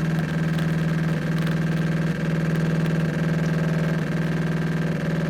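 Jura E8 espresso machine's pump running steadily with a low hum while it brews a single espresso shot. The hum dips slightly about once a second.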